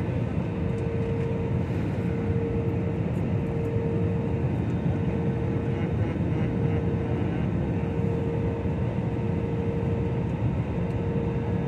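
Steady cabin noise of a jet airliner in flight: an even low rumble of engines and airflow with a steady hum running through it.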